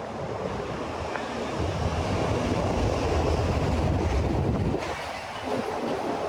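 A vehicle passing in the street: a low rumble that swells about a second and a half in and fades about five seconds in, over steady city street noise.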